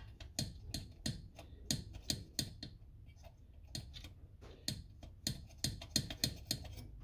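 Light metal clicks, irregular at about three a second, from the governor arm and throttle linkage of a Honda-clone four-stroke engine being worked back and forth by hand. The stiff governor linkage is freeing up.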